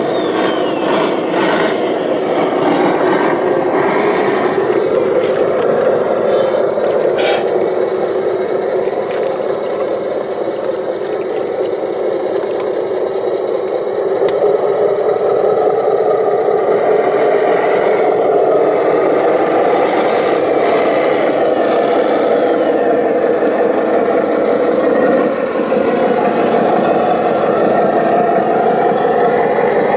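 Radio-controlled construction vehicles working in sand: electric motors and gearboxes whirring, with scraping and rattling and some clicks in the first few seconds. It gets a little louder about halfway through.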